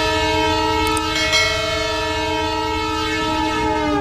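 A train horn sounding one long, steady blast over a low rumble of the train, its pitch sagging slightly near the end.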